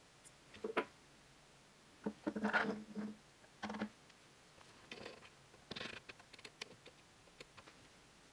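Faint scattered clicks, taps and light scrapes of a guitar pickup's bar magnet being handled and set against a small magnet-measuring gauss meter, busiest about two to three seconds in.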